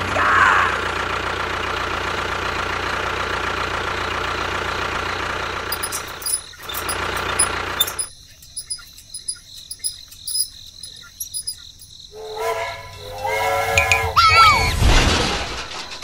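An engine running steadily for about the first six seconds, then dropping away. A quieter stretch with scattered light clicks follows, and near the end comes a short run of pitched sounds with a rising note.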